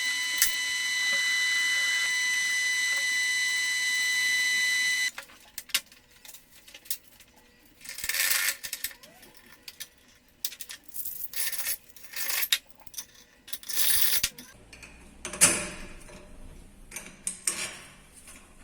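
A machine running with a steady high whine that cuts off abruptly about five seconds in. Scattered metallic clinks and knocks follow, with a few short bursts of hiss-like noise.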